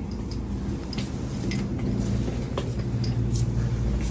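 Steady low machine hum of store equipment, with scattered light clicks and clinks.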